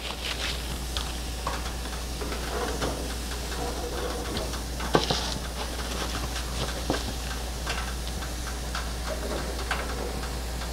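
Raw beef burger patties sizzling and crackling on the hot grates of a gas grill, with a few sharper ticks along the way.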